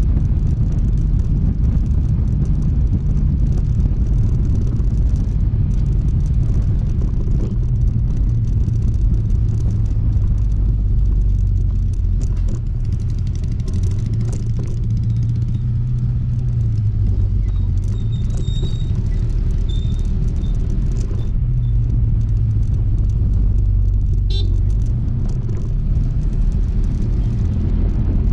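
Honda ADV160 scooter's single-cylinder engine running on the move, with wind rumble on the microphone; the engine note rises and falls a little with speed.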